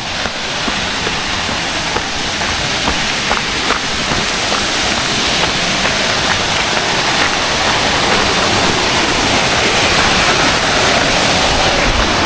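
Waterfall's rushing water: a steady, even rush that grows gradually louder.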